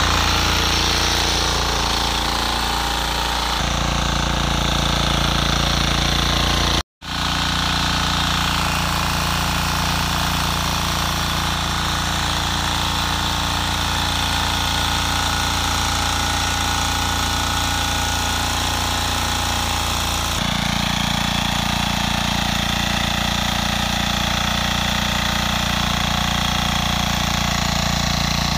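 Husqvarna 545D walk-behind tiller's diesel engine running steadily under load, its rotary tines churning hard, compacted soil. The sound cuts out for an instant about seven seconds in.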